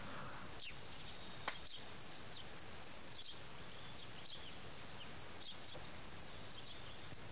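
Faint outdoor ambience with small birds chirping in short, repeated calls, and a single sharp click about a second and a half in.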